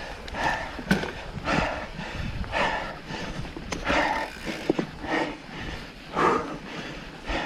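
Heavy breathing of a mountain biker riding hard: a breath roughly once a second, over a low rumble with a few sharp clicks.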